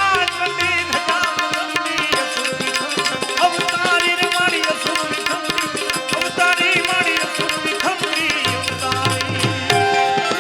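Instrumental bhajan music: tabla playing a quick, busy rhythm under a wavering melodic lead line. Deep bass notes join near the end.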